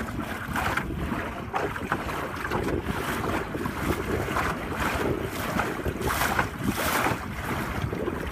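Wind buffeting the microphone and water rushing and splashing along the hull of a 12-foot Whitehall sailing skiff under way, in uneven surges.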